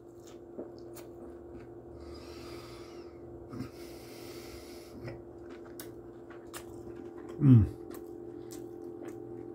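A man chewing a mouthful of cheesesteak with small wet mouth clicks, breathing out heavily through the nose twice, then giving one short falling 'mmm' of pleasure about seven and a half seconds in. A faint steady hum runs underneath.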